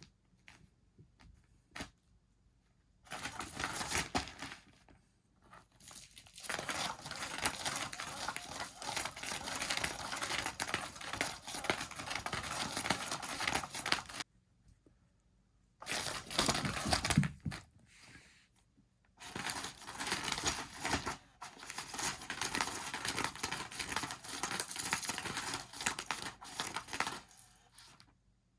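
Cat scratching and rustling at a crinkly surface, in several bouts of a few seconds each with short quiet gaps between.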